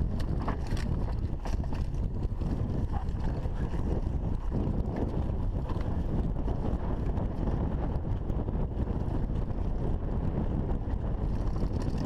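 Steady wind rumble on the camera microphone mixed with tyre noise as a mountain bike rolls down a dirt singletrack, with a few sharp clicks and rattles from the bike over the bumps.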